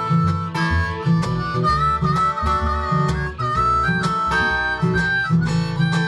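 Harmonica solo with held, bending notes over a strummed Eastman acoustic guitar and a plucked washtub bass keeping a steady rhythm, with no singing.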